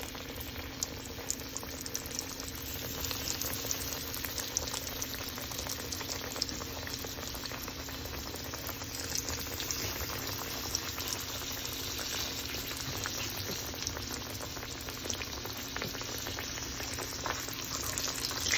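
Breaded green tomato slices frying in hot oil in a skillet: a steady bubbling sizzle full of fine crackles.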